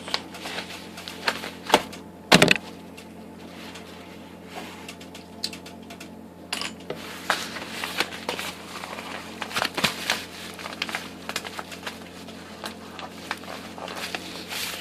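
Package being opened by hand: scattered clicks, crackles and crinkling of packaging, with one sharp loud crack about two seconds in.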